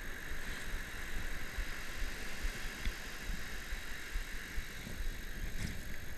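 Surf washing on the beach with gusty wind buffeting the camera microphone: a steady hiss over irregular low rumbling thumps.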